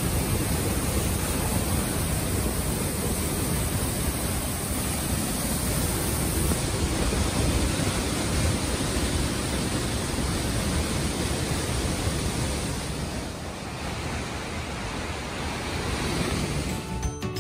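Waterfall pouring through a hole in a rock roof into a churning plunge pool: a steady, dense rush of falling water.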